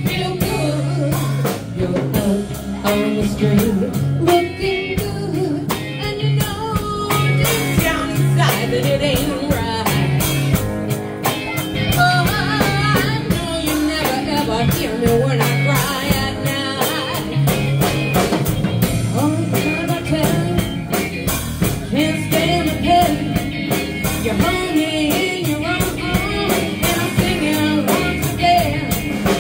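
Live band playing a song: a woman singing lead over electric guitar, electric bass and a drum kit with a steady beat.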